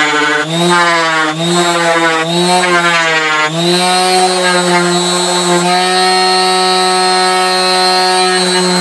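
Electric random orbital sander running and sanding wood; its motor pitch dips and recovers repeatedly as it is pressed on and eased off the work. About three and a half seconds in it is lifted off the wood and runs free at a steady, slightly higher pitch.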